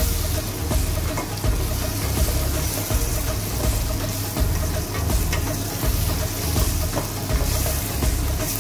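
Chickpeas, potato and carrot pieces sizzling in oil in a steel pot while a spoon stirs them, with frequent small clicks and scrapes of the spoon against the metal.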